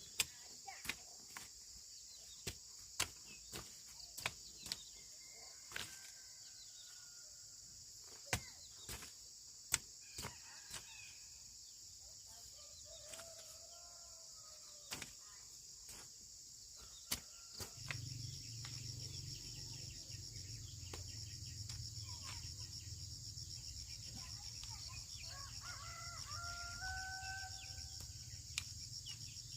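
Scattered chicken clucks over a steady high-pitched drone, with a string of sharp knocks or taps, the loudest sounds, through the first half. A low hum joins a little past halfway.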